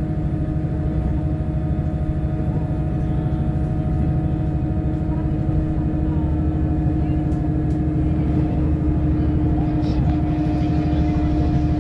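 Inside a diesel railcar running at speed: a steady engine and drivetrain hum under a low rumble from the wheels on the rails, growing slightly louder toward the end.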